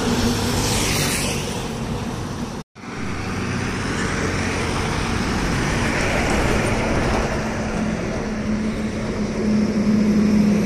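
Road traffic passing close by: a motorcycle, then a coach bus driving past with its engine running. The sound drops out completely for a moment a little under three seconds in, then the traffic noise resumes with a steady engine hum growing stronger near the end.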